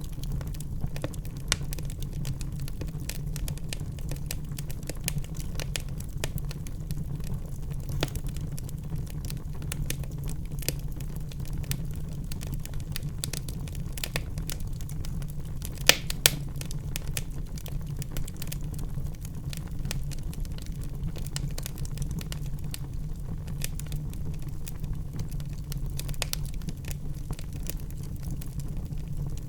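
Wood fire burning in a fireplace: a steady low rumble of the flames with constant small crackles and pops, and two sharp, loud snaps close together about halfway through.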